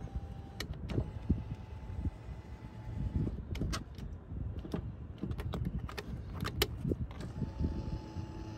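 Power seat motor whirring in separate runs as the seat switch is worked: one run stops about half a second in, another runs from about 1 to 3 seconds in, and a third starts about 7 seconds in. Sharp clicks fall between the runs.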